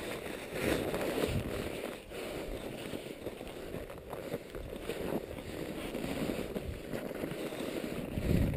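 Wind rumbling on a head-mounted action camera's microphone, mixed with rustling and crunching of snow and clothing as the wearer moves, louder near the end.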